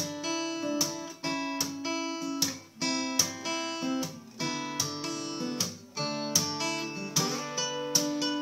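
Acoustic guitar played in a steady rhythm, each chord or note group struck with a sharp, percussive attack, the chords changing every second or so.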